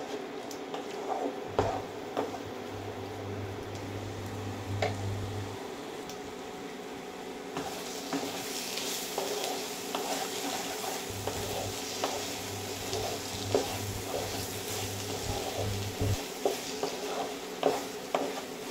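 Spatula stirring and scraping peas and mushrooms frying in a nonstick wok, with repeated light knocks against the pan over a soft sizzle. The sizzle grows louder about eight seconds in. A low hum comes in twice for a few seconds.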